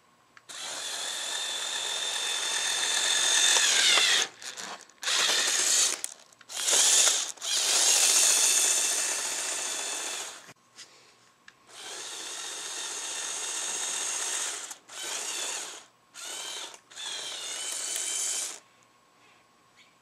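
LEGO Technic 8275 bulldozer's electric motors and plastic gear trains whining as it is driven by remote control, in about nine runs that start and stop abruptly, the pitch dipping in places.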